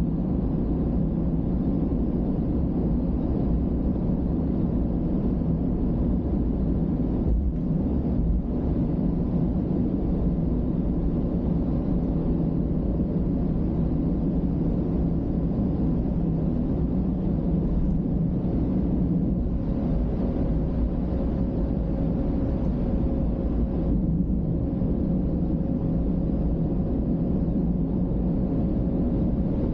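Steady road and engine noise of a car cruising at highway speed, heard from inside the car through a dashcam microphone, with a faint steady hum over the low rumble.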